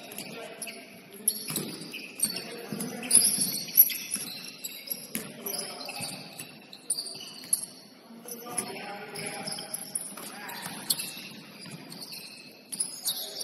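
Basketball game on a hardwood court: sneakers squeaking sharply on the floor again and again, a ball bouncing now and then, and players' voices.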